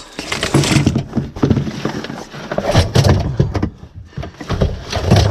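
Rummaging through a storage container: items clattering, knocking and scraping as they are shifted about in irregular bursts.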